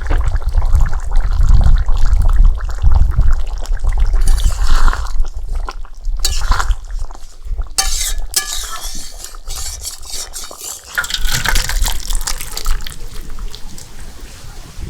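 Thick prawn and pointed-gourd curry bubbling in a pan and being stirred, with wet splattering, a spoon clinking against the pan, and a low rumble through the first few seconds.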